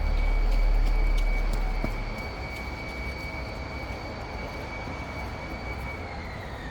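A vehicle passing: a low rumble fades over the first two seconds, under a steady high whine that drops in pitch near the end as it goes by.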